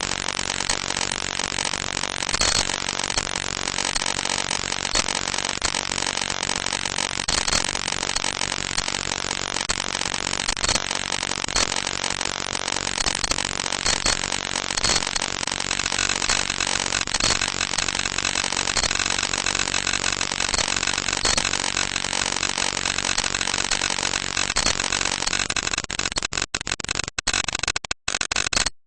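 A loud, steady, harsh droning noise. About halfway through it turns more buzzy, and near the end it cuts in and out several times.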